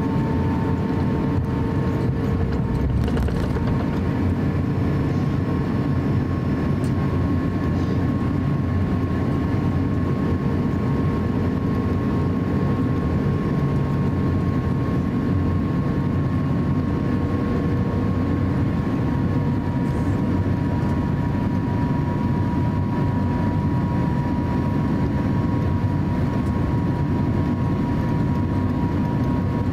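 Cabin noise of an Airbus A350-900 taxiing, its Rolls-Royce Trent XWB engines at taxi power: a steady low rumble with a thin steady whine over it.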